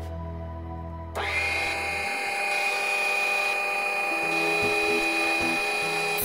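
Proxxon mini table saw switched on about a second in, its motor whine climbing quickly and then running steadily at full speed, with background music underneath.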